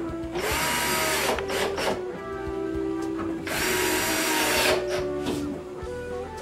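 Hitachi cordless drill driving 1-inch screws into the cabinet's wood in two runs of about a second each. Each run begins with a rising motor whine and ends with a falling one. Background music plays underneath.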